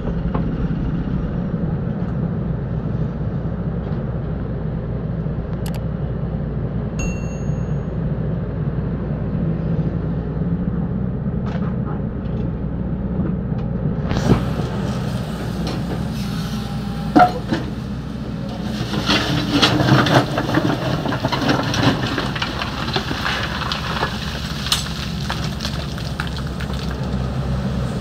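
XCMG 75 compact excavator's diesel engine running steadily under load. About halfway through, the rattle and scrape of the bucket working sand-and-gravel joins in, busiest a few seconds later.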